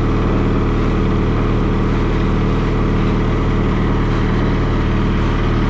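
Skid steer engine running steadily at idle, with its drive sitting in neutral.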